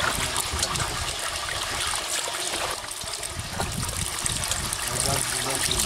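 Muddy water pouring steadily through a gap in a mud bank into a woven bamboo basket, splashing onto the small fish caught in it.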